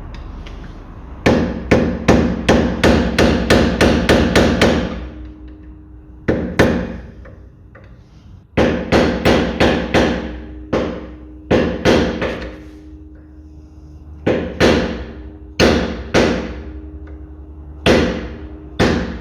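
Hammer striking metal in quick runs of blows, each hit ringing briefly, knocking loose the small cap over the central hub nut of a car's rear brake disc. A fast run of about a dozen strikes comes about a second in, then shorter groups of blows with pauses between them.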